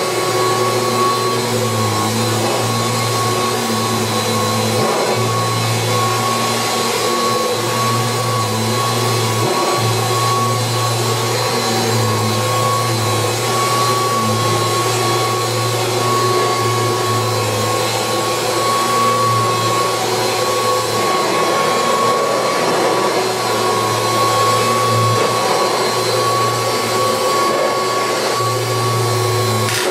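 1986 Kirby Heritage II upright vacuum cleaner running steadily while vacuuming, its motor giving a constant high whine. A low hum beneath it cuts in and out every few seconds.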